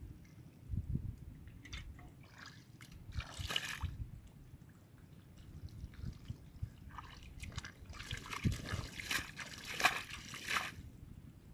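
Hands and feet working through shallow muddy water: wet squelching of mud with sloshing and splashing, in two longer bursts, about three seconds in and again from about eight to eleven seconds.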